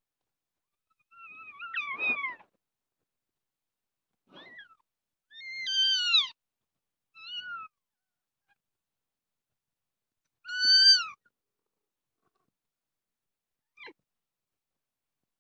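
Kitten meowing: about six high, thin meows spaced a second or more apart, most sliding down in pitch at the end, with the loudest two a little over a third of the way in and about two-thirds in, and the last one faint.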